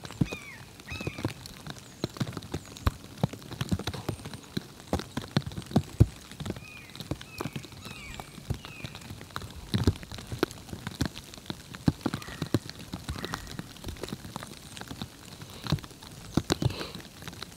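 Irregular light taps and knocks, with a few short bird chirps in between, several of them in a quick run about a third of the way in.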